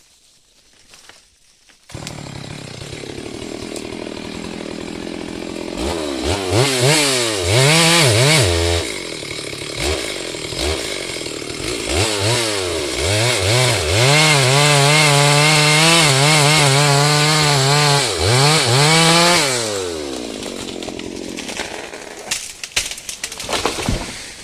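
Chainsaw engine starting about two seconds in and idling, revved up and down several times, then held at high revs for about five seconds before falling back to idle and stopping near the end.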